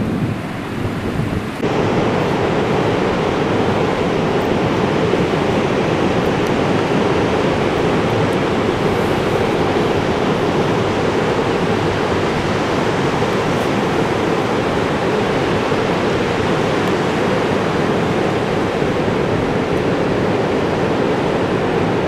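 Ocean surf breaking on a sandy beach: a steady, loud rushing that comes in abruptly about a second and a half in, after a quieter rush.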